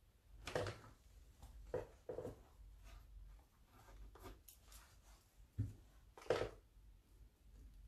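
Paper and art supplies being handled on a work table: a handful of short scrapes and taps, the loudest about half a second in and again about six and a half seconds in.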